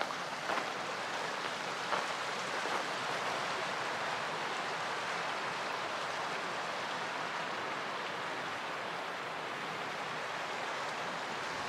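Steady rushing of a creek flowing over rocks, an even hiss without pitch, with a few faint knocks.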